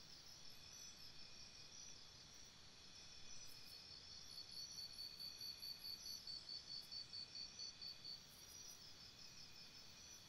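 Insects chirping faintly outdoors: a high note pulsing about three times a second over a low background hiss.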